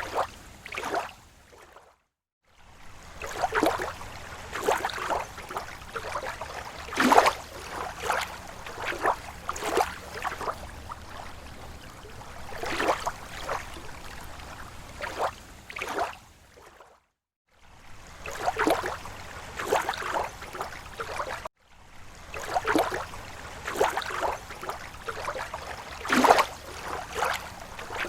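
Small waves lapping against a lake shore: irregular sloshes and splashes, one or two a second, with three brief drop-outs to silence.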